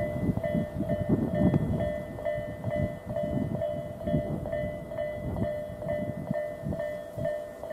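Railway level-crossing warning bell ringing in an even electronic ding-ding, about two and a half strikes a second, warning that a train is approaching. A low, uneven rumble runs beneath it.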